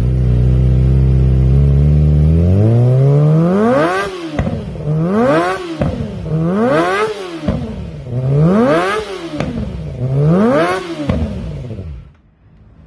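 Kawasaki ZX-25R's inline four-cylinder engine through a Termignoni long slip-on exhaust: idling steadily for a couple of seconds, then revved five times, each rev climbing in pitch and dropping back, before cutting away near the end.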